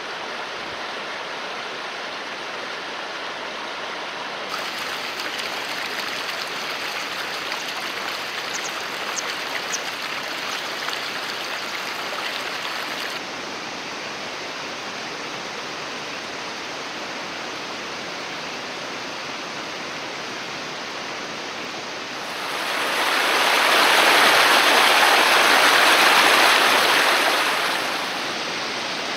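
Rushing water of a mountain stream, a steady hiss that steps up and down abruptly a few times and is loudest for several seconds near the end.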